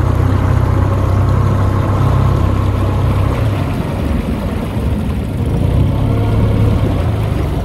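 Small tender's outboard motor running slowly as the boat circles, a steady low drone that eases for a moment midway and then picks up again.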